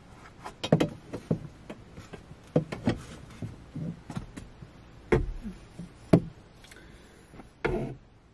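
Irregular knocks, taps and clatter of a bent metal curtain rod being handled and fitted against a van's ceiling and fittings, with a few sharper knocks about five and six seconds in.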